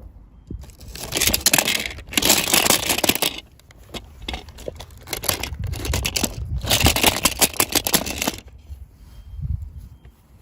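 Toy packaging being torn open and crinkled by hand, in two bouts of crackly tearing and rustling.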